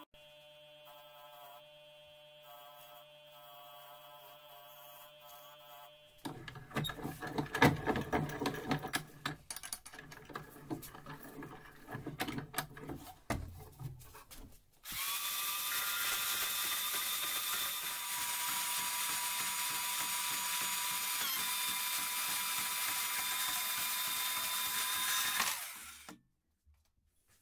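Irregular clattering and knocks for several seconds, then a portable band saw runs with a steady whine for about ten seconds and stops suddenly.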